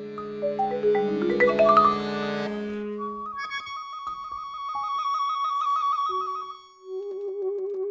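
Live contemporary chamber music for flute, saxophone, percussion and accordion. Dense held chords with scattered struck notes stop about two and a half seconds in. A single high held note follows, wavering in pitch, and a lower wavering note takes over near the end.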